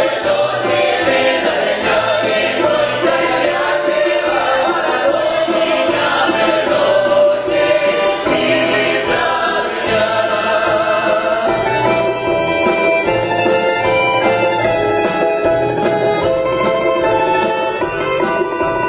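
Live folk ensemble of mixed men's and women's voices singing a Russian Cossack folk song in chorus, with a small band accompanying them.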